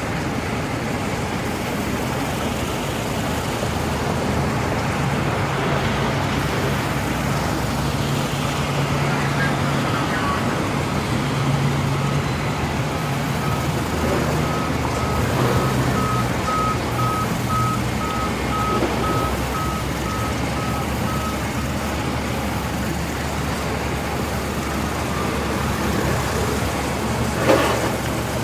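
Band sawmill running steadily while a log is fed through the blade, with a faint pulsing high beep partway through and a sharp knock near the end.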